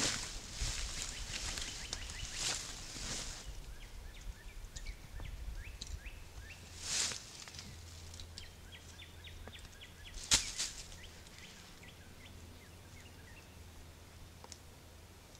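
Rustling of dry leaf litter and backpack fabric as a heavy pack is set down and gone through, in scattered bursts, with one sharp click about ten seconds in.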